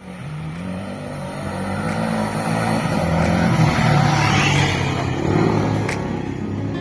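Off-road motorcycle engine running under throttle. It grows louder to a peak about four seconds in, then eases off.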